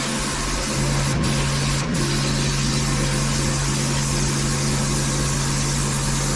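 A petrol pressure washer's engine running steadily under load, with the hiss of the high-pressure spray, which drops out briefly twice.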